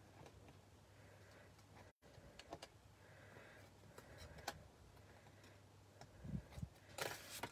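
Faint scattered clicks and light rustling as thin metal cutting dies are handled and set down on a magnetic sheet, over a low steady hum, with louder rustling near the end.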